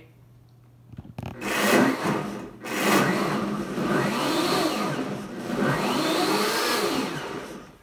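Countertop blender pulsed on a strawberry-and-milk smoothie. A short burst starts about a second in and stops briefly, then a longer loud run follows and cuts off near the end.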